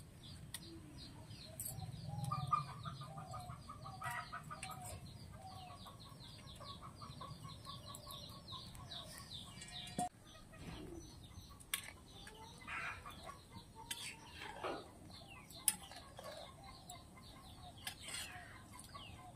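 Chickens clucking in a run of short repeated calls, with many quick high chirps over them, faint in the background. A single sharp tap stands out about three-quarters of the way through.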